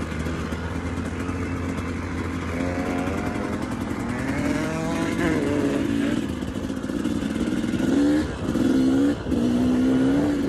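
Yamaha YZ250 two-stroke dirt bike engine under way, heard from the rider's seat: it runs steadily, then the revs climb in pitch several times, with two short breaks in the sound about eight and nine seconds in.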